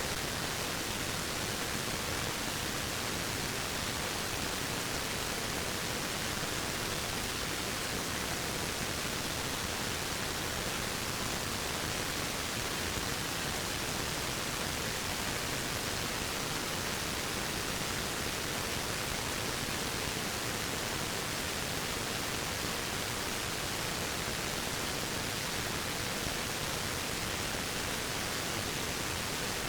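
Waterfall rushing in a steady, even hiss that never changes in level.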